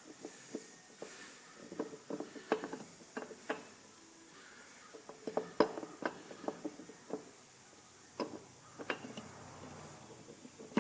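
Irregular light clicks and clinks of hand tools and small metal parts being handled while a truck's wheel hub is put back together.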